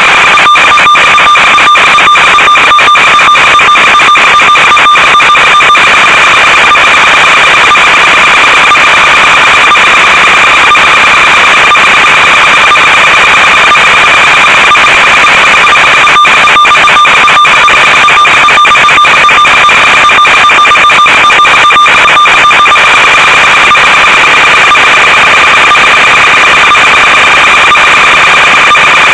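Loud steady electronic hiss with a constant high-pitched whine, the audio channel of an analog FPV video downlink, broken by many brief dropouts. The lower whine tone fades out about two thirds of the way through and returns near the end.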